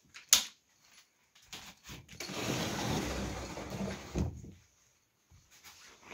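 A sharp click, then a wooden sliding door rumbling along its track for about two seconds and stopping with a knock.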